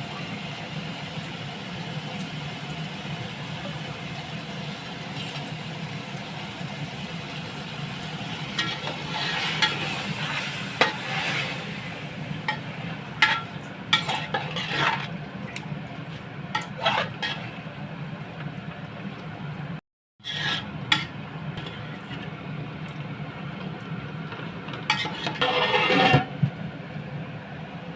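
Chicken curry masala sizzling steadily in a pot while a metal spoon stirs it, with bouts of scraping and sharp knocks against the pot in the middle of the stretch and again near the end.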